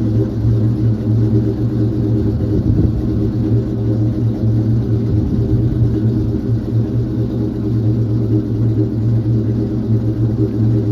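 Rebuilt Ford 5.0 V8 engine running at a steady idle.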